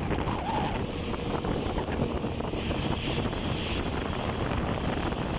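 Wind buffeting the microphone in a snowstorm over a steady low rumble.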